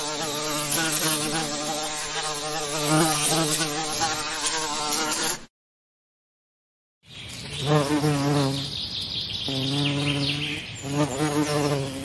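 Bee buzzing, a wavering pitched hum that cuts off suddenly about five and a half seconds in. After a second and a half of silence it returns as a few separate buzzes, each a second or so long.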